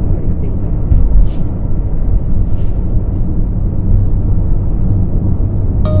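Road noise inside a moving car: a steady low rumble of engine and tyres on asphalt, with two short hissing swishes about a second in and again around two and a half seconds in.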